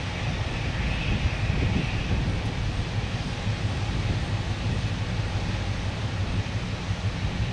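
End-cab diesel switcher locomotive running as it moves slowly along the track, heard across an open field as a steady low rumble.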